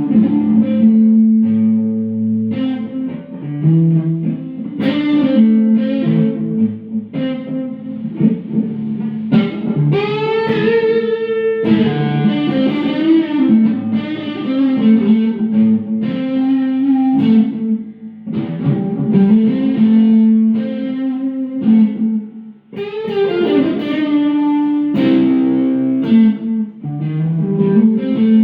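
Electric guitar played through an amp with effects: a continuous run of picked notes and chords, with string bends about ten seconds in and again near the end.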